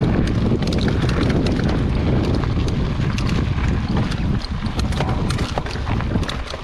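Wind rumbling on the microphone of a camera on a moving mountain bike, with frequent irregular clicks and rattles from the bike over rough trail.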